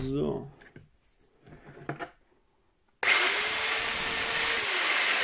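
Ferrex corded rotary hammer switched on in chisel (hammer-only) mode and run briefly without load: loud motor and electropneumatic hammer mechanism starting abruptly about three seconds in, its whine rising as it spins up and dropping near the end as the trigger is let go.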